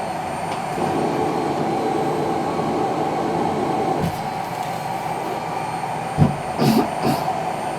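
Cough assist machine's blower rushing air through its hose in a cycle: louder for about three seconds as it pushes air into the lungs, then quieter. Near the end, a sudden thump and two short bursts as it switches to pull the air back out for a cough that brings nothing up.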